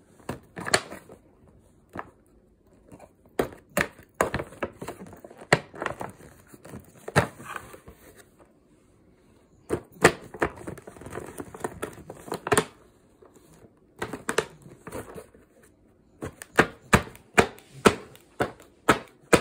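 A baby's hands slapping and tapping a cardboard toy box with a clear plastic window: irregular sharp taps, then a quicker, even run of taps over the last few seconds.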